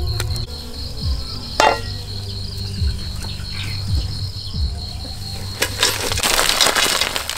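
Crickets chirping steadily in a high, even tone. Near the end, a loud sizzle lasting about a second and a half comes from a pot of crabs being stirred over a charcoal stove.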